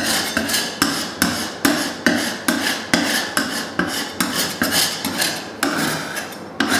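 Metal scraper blade scraping a wetted plaster wall in quick repeated rasping strokes, about two or three a second, lifting softened wallpaper paste and loose, poorly bonded paint.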